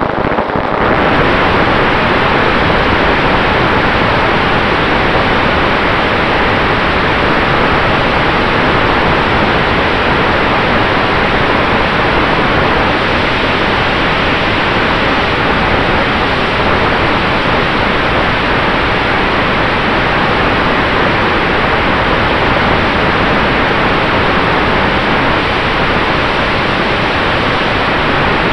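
Steady loud rush of propeller and wind noise from a radio-controlled Maule model airplane flying under power, heard from a camera on its nose, with a faint steady hum from the motor underneath.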